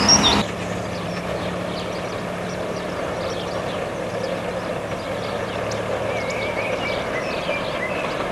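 Miniature railway train running steadily along its track, a continuous low hum under a wash of running noise. A few notes of music cut off about half a second in.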